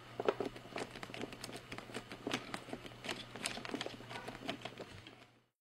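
Small Phillips #0 screwdriver backing a tiny screw out of a laptop LCD panel's metal side bracket: a run of light, irregular clicks and scrapes, several a second, over a steady low hum. The sound stops abruptly shortly before the end.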